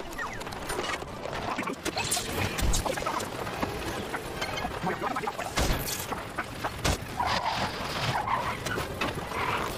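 Cartoon soundtrack: busy music with several sudden crash and bang sound effects. The biggest hits come about five and a half and seven seconds in.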